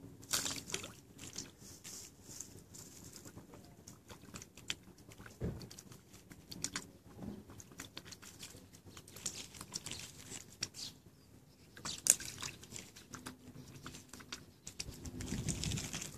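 Mute swan feeding with its bill in the water: irregular small splashes and wet clicking as it dabbles, with one sharper click about twelve seconds in and a louder rustle near the end.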